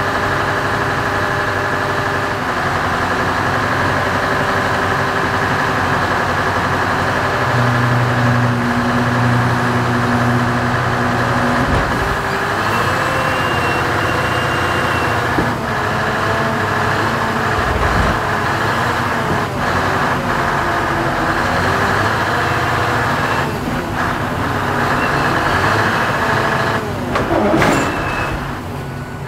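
Scania R620's V8 diesel running at raised revs to drive the hook lift's hydraulics while the hook arm sets a container down onto the trailer. The engine tone is steady, shifts pitch about halfway through and glides near the end, with a few low thumps as the container settles.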